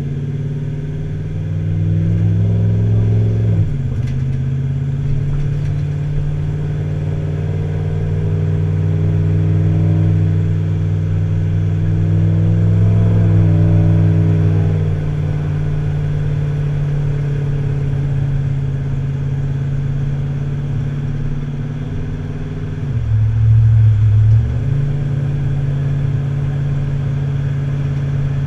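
Engine of a vehicle towing a boat, running steadily on the road. Its pitch drops sharply a few seconds in, then dips briefly and comes back up near the end.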